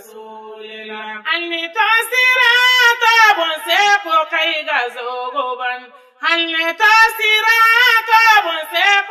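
A high voice singing an unaccompanied Islamic devotional chant, with long wavering, ornamented notes. It breaks off briefly about six seconds in, then resumes.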